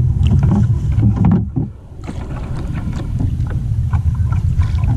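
Wind and water around a small paddled outrigger canoe on the sea: a steady low rumble with small splashes and knocks, easing briefly about a second and a half in.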